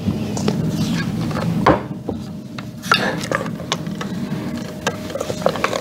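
Cubes of sponge cake being handled in a metal mixing bowl, with scattered light knocks and scrapes of kitchenware against the bowl.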